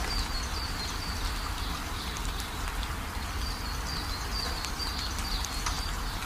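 Steady rain on a corrugated metal roof, with water pouring off the roof edge and splashing, and scattered raindrop ticks. A high, short chirping call repeats through it.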